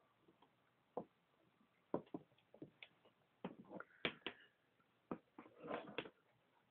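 Old leather cowboy boots stepping on a wooden floor: a dozen or so sharp heel knocks at uneven spacing, with a short scuffing cluster near the end.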